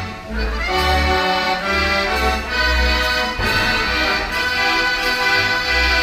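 Decap dance organ "De Kempenaer" playing a tune, its accordions and pipes holding chords over a steady bass line. There is a brief dip in loudness just after the start.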